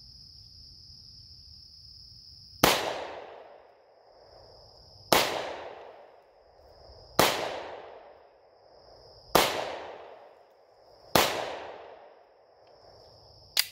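Five pistol shots from a Glock G29 10mm Auto, spaced about two seconds apart, each dying away over about a second. Insects keep up a steady high-pitched buzz between the shots.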